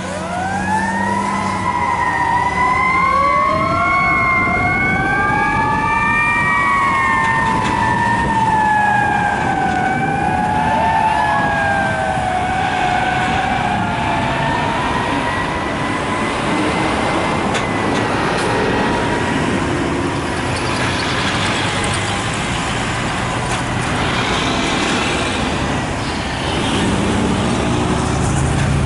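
Fire truck sirens wailing as the trucks drive off. Two sirens overlap, rising and falling slowly in pitch, then settle into one steadier tone that fades out after about twenty seconds, leaving the sound of passing road traffic.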